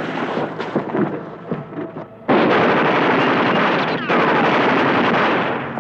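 Dubbed gunfire sound effects aimed at a plane. A little over two seconds in, they break into a sudden loud, dense burst of noise that runs almost to the end, with a short falling whistle about four seconds in.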